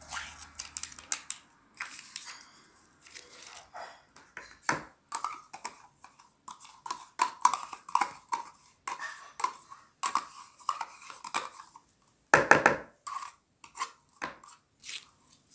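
A spoon scraping yogurt out of a plastic cup and knocking against the cup and a plastic mixing bowl: irregular short scrapes and taps, with a louder knock near the end.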